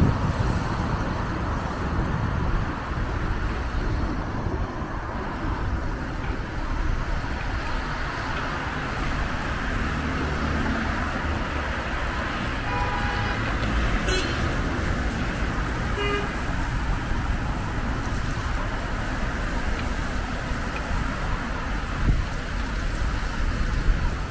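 Steady city street traffic heard from a moving bicycle, with a low rumble throughout. Short vehicle horn toots sound about 13 and 16 seconds in.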